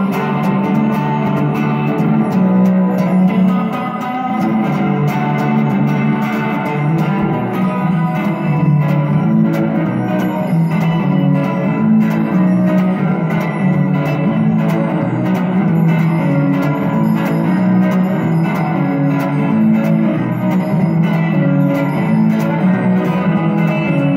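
Instrumental music: electric guitar notes drenched in echo, with light saturation, over a twinkly synthesizer background. The notes change about once a second and ring into one another.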